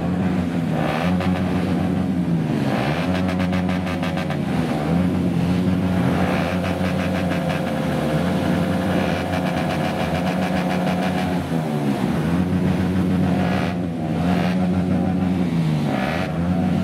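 Several motor scooter and motorcycle engines running together, revved up and down over and over every second or two in a loud, continuous din.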